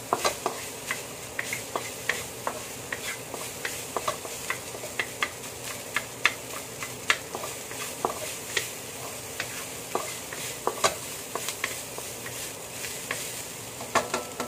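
Stir-frying in a wok: a wooden spatula scrapes and taps against the wok in irregular clicks, several a second, over a steady sizzle.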